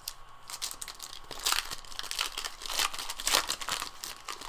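Plastic trading-card pack wrapper crinkling and tearing as it is ripped open by hand, in irregular rustling bursts that are loudest about a second and a half in and again around three seconds in.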